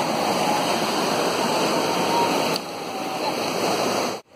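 Mountain stream rushing in rapids over boulders, a steady full rush of water. It becomes a little softer about two and a half seconds in and cuts off just before the end.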